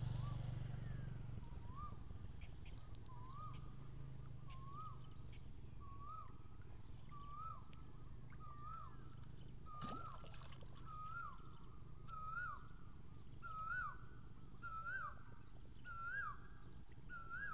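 A bird calling a long series of short, hooked notes, about one a second, each a little higher than the last. A single sharp click about ten seconds in.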